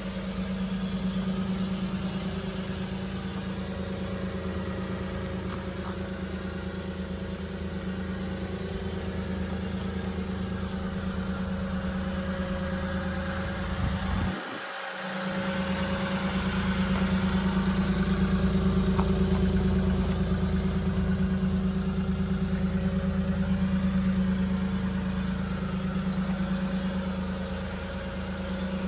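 A 1997 Mitsubishi Minicab kei truck's small three-cylinder engine idling steadily, with a brief dip in the sound about halfway through.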